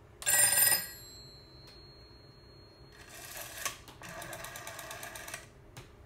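Western Electric rotary wall telephone's bell gives one short ring, and its tone fades away over a couple of seconds. Then a run of rapid, evenly spaced clicks, about ten a second, lasts roughly two seconds, like the rotary dial clicking back after being wound.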